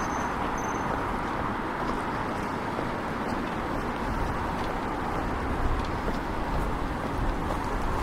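Steady street ambience of road traffic, an even rumble of passing vehicles.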